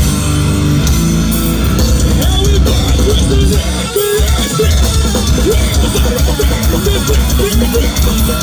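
Metalcore band playing live at full volume: distorted electric guitars, bass and drums. About four seconds in the music drops out for a moment, then comes back with a fast, pounding low rhythm.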